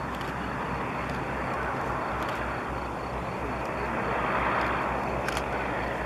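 Avro Lancaster's four Rolls-Royce Merlin V12 engines running at low power as the bomber rolls along the runway: a steady rumble with a low pulsing beat that swells a little about four seconds in.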